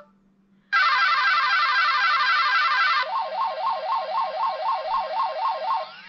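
A T-Mobile Sidekick II (Hiptop 2) phone playing one of its built-in electronic tones through its small speaker. A fast, high trilling warble starts about a second in. About halfway through it changes to a lower tone swinging up and down about three times a second, like an alarm.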